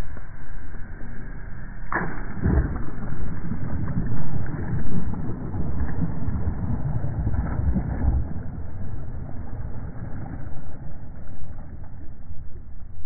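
A cast net thrown and landing on the water, slowed down and muffled. There is a sharp swish about two seconds in, then a long, low rushing splash as the net and its weights hit the surface, fading toward the end.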